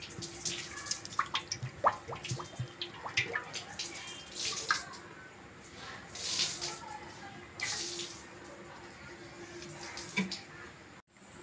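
Cooking oil poured in a thin stream into a wide metal kadai, trickling and splashing into the pooling oil, then stopping near the end.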